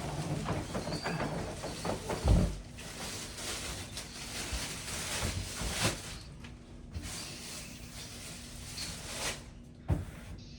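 Packaging being handled while a boxed statue is unpacked: scraping and rustling of cardboard and foam, with scattered clicks and a few dull knocks.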